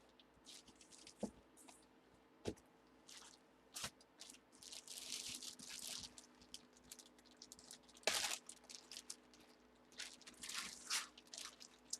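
Faint rustling and crinkling of plastic packaging being handled, with a few light clicks and knocks; the busiest stretch of rustling comes near the middle and a sharper knock a little later.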